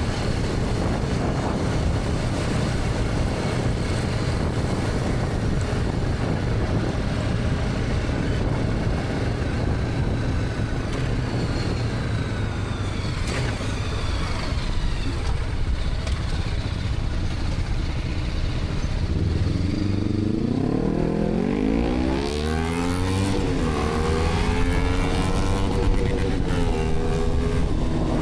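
BMW G310R's single-cylinder engine cruising under a steady rush of wind and road noise, then accelerating hard about two-thirds of the way in. The engine note climbs, dips at a gear change, climbs again and holds before easing off near the end.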